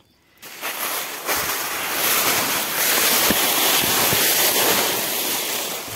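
Wind rushing in a steady hiss, swelling over the first two seconds and easing near the end.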